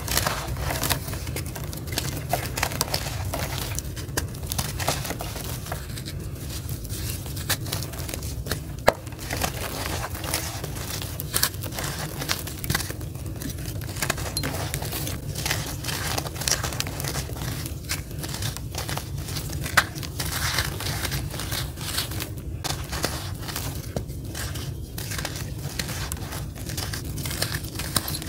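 Gritty charcoal lumps crushed and crumbled between bare hands: a dense, irregular run of crunching and crackling as grit and fragments break off and fall onto the pile, with an occasional sharper snap.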